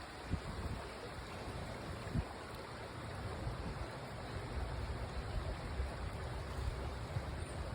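Steady rush of flowing stream water, with a few brief low thumps.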